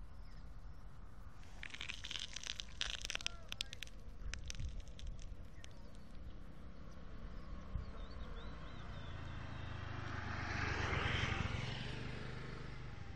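A motor vehicle's engine passing by, its sound swelling and then fading between about eight and thirteen seconds in. Before it, a short flurry of sharp crackling clicks about two to four seconds in.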